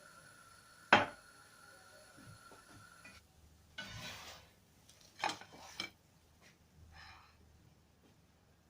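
Kitchen dishes and cutlery being handled and set down: a sharp clink about a second in, then rustling and a few light knocks. A steady high hum cuts off about three seconds in.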